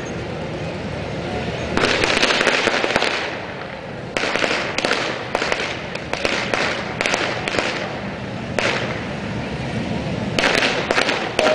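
Strings of firecrackers going off in rapid crackling spells: a short one about two seconds in, a longer run from about four to eight seconds, and another starting near the end.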